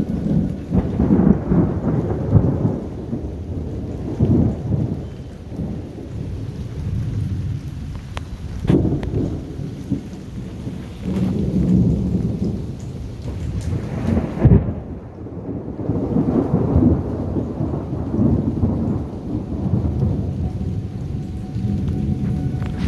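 Thunder rolling and rumbling in waves over steady rain, with two sharper cracks, about nine seconds in and again near fifteen seconds.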